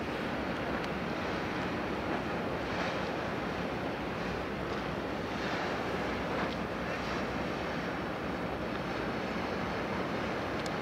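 Steady outdoor rush of wind and water, an even hiss with no distinct events.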